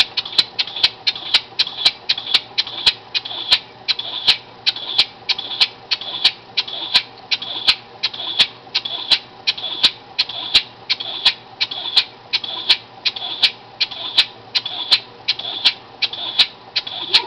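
Small home-built oscillating-cylinder air motor running on compressed air. Its exhaust gives a steady rhythm of sharp, hissy puffs, about three a second.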